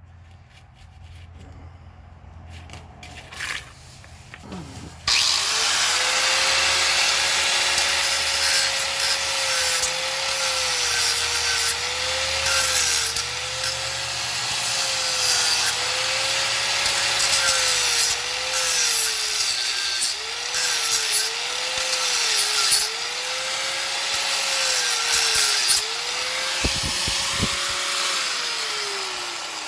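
Electric angle grinder starting about five seconds in and grinding the corner off a metal part. Its motor whine dips repeatedly as the disc bites under load, then winds down near the end as it is switched off.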